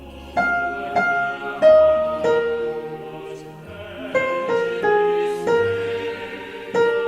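A piano plays a single melody line, one struck note at a time, loud over a choir's recording and doubling its second soprano part. Under it the choir sings sustained, blended chords.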